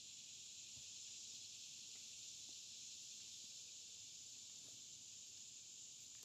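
A faint, steady high-pitched hiss, with a few soft low taps.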